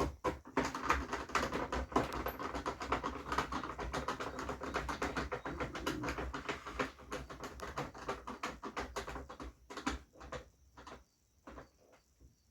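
Fast, dense run of small clicks and clatters, like parts being handled, that thins out and stops over the last couple of seconds.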